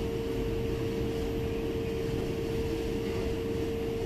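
Interior hum of an SMRT C751B metro train carriage: a low, even rumble with one steady mid-pitched tone held without change in pitch.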